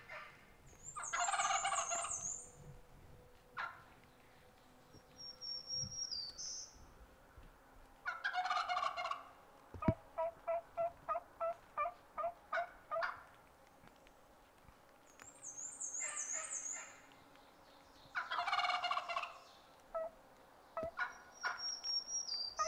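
Wild turkey gobbling loudly several times, with a quick run of about a dozen short yelps in the middle. Small songbirds trill and whistle faintly in between.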